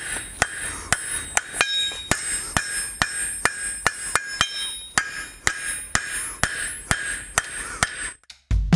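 Hand forging hammer striking steel flat stock on an anvil in a steady rhythm, about two to three blows a second, each blow followed by a high metallic ring. The hammering stops shortly before the end.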